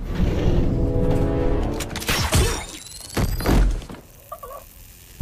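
Dramatic film score, with two heavy impact hits and crashes about two and three seconds in and a rising high whine between them. The sound then drops away near the end.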